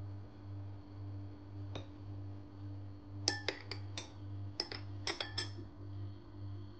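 Glass drinking straw clinking against the side of a glass tumbler of lemon water: one light tap, then a quick run of about eight bright, ringing clinks. A low, steady hum lies underneath.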